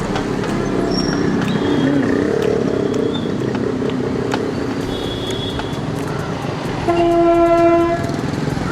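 Steady street traffic noise, with a vehicle horn blaring for about a second near the end.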